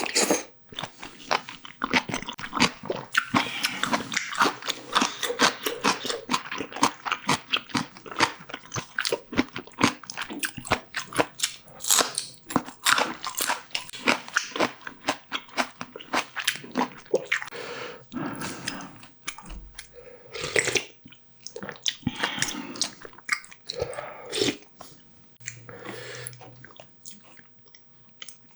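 Close-miked chewing and crunching of food, with rapid crisp bites over roughly the first half, then slower, softer and wetter chewing.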